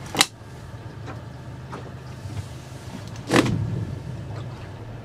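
Motorboat engine running at low speed with a steady low hum while manoeuvring, with two short, loud noises, one right at the start and one a little past the middle.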